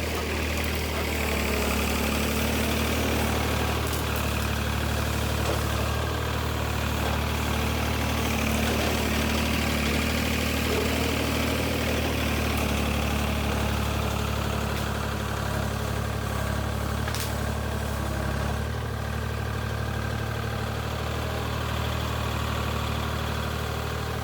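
A low-pitched engine idling steadily, with no revving.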